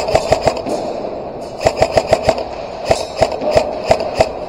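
Airsoft guns firing: a quick string of shots at the start, another about a second and a half in, then slower single shots about three a second, over a steady background hum.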